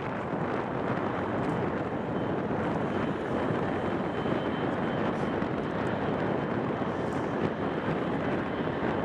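Airbus A330-243 jet engines running as the airliner rolls along the runway: a steady rushing noise with a faint high whine over it.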